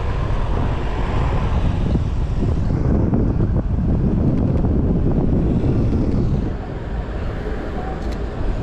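Wind buffeting an action camera's microphone: a dense, uneven rumble that eases a little about six and a half seconds in. Road traffic noise sits beneath it.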